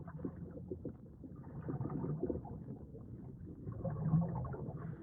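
Underwater ambience sound effect: a muffled low rumble with irregular bubbling and gurgling, swelling and ebbing, with nothing high-pitched in it.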